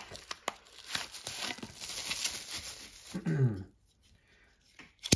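Handling noise as a folding knife is picked up: rustling and crinkling with many light clicks for about three seconds, then quiet with a small click and one sharp click at the very end.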